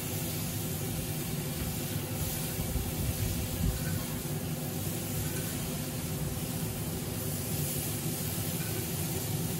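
Steady hiss and low rumble of a hot grill as olive-oil-brushed peach halves are laid on its grates and sizzle.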